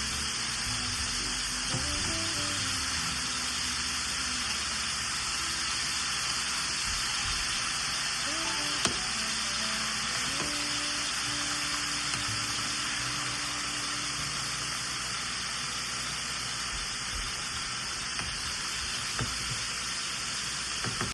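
Chicken wings deep-frying in hot oil on medium heat, a steady, loud sizzle that goes on without a break.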